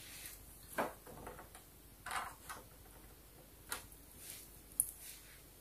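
A handful of faint, sharp clicks about a second apart: tiny plastic toy tablets being dropped into a small plastic tray.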